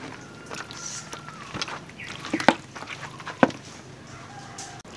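A few scattered sharp clicks and light knocks from handling at a stainless steel tray, over a faint steady background with a brief thin tone near the start and another near the end.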